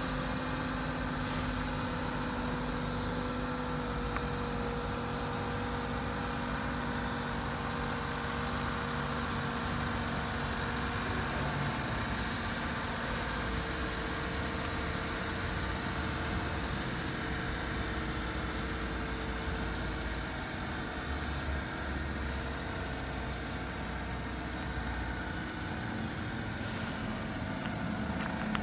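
Mitsubishi Minicab kei truck's small three-cylinder engine idling steadily, with a low rumble underneath.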